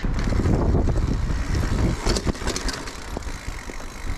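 Wind buffeting a bike-mounted camera's microphone as a mountain bike rolls along a dirt trail, with tyre and drivetrain noise underneath. A few short knocks and rattles come about two seconds in as the bike goes over bumps.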